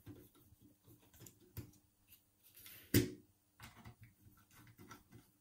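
Screws being undone from the steel case of a Union four-lever mortice lock: faint scraping and small metal ticks, with one sharp metal click about three seconds in.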